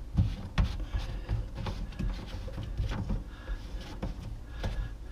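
Plastic drain fittings being handled and hand-tightened under a sink: a series of small, irregular knocks and clicks as the slip nuts on the black plastic tailpiece are turned.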